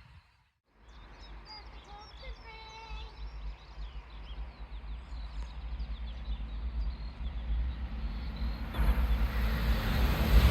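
Birds chirping over a low rumble that builds steadily as an approaching train draws near, growing sharply louder near the end.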